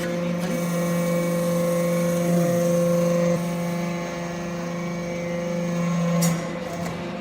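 Hydraulic metal-chip briquetting press running with a steady pump hum. The tone changes about three and a half seconds in, and a short knock about six seconds in is followed by a quieter hum.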